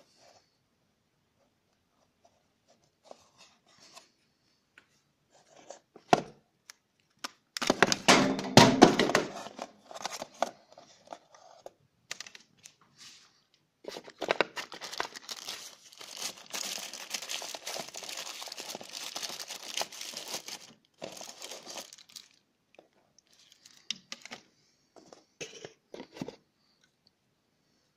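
Plastic wrapping crinkling and cardboard box parts rustling and scraping as phone accessories are handled and unpacked. There is a loud burst of crinkling about eight seconds in and a long stretch of steady rustling from about fourteen to twenty-one seconds.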